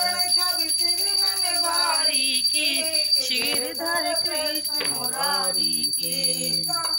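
Singing of a Hindu aarti to Krishna with musical accompaniment, the voices wavering and held between lines of the hymn.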